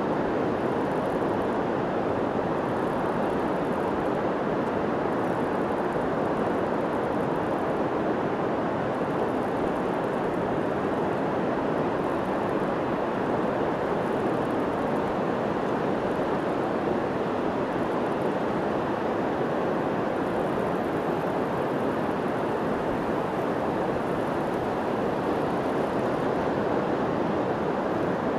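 Steady, even roar of ocean surf on a beach, with no breaks or separate wave crashes.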